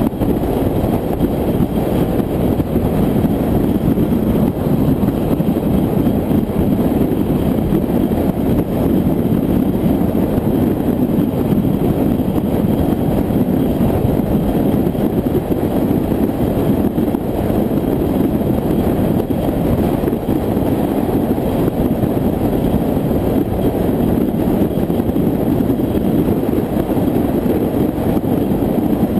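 A car cruising at highway speed: a steady rush of wind and road noise with the engine's drone underneath, unchanging throughout.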